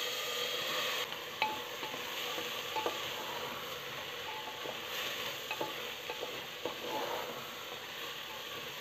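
Soaked basmati rice sizzling in hot ghee in an aluminium pressure cooker, stirred with a spatula that scrapes and taps against the pot now and then. The sizzle is a little louder in the first second as the last of the rice goes in.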